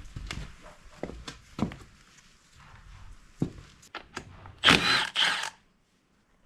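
Hand tools knocking and clicking against the engine during work on the timing gear, with two short, louder rasping bursts about four and a half seconds in.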